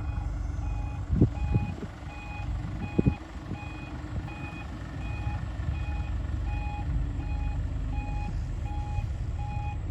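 Reversing alarm of a heavy earthmoving machine beeping steadily, a little over once a second, over the low running of its diesel engine. Two short thuds sound about a second and three seconds in.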